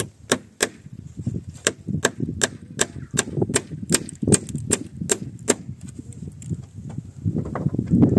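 Hammer driving a nail into a wooden rail: a run of about fourteen sharp, ringing taps, two or three a second, that stops about five and a half seconds in. Low knocks and shuffling of handling run underneath.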